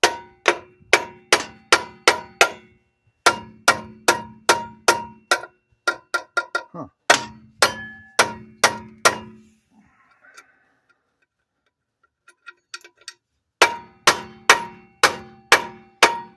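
A steady run of sharp metal-on-metal strikes, about two a second, each ringing briefly at the same pitch. They come in three runs, with a pause of about four seconds before the last run.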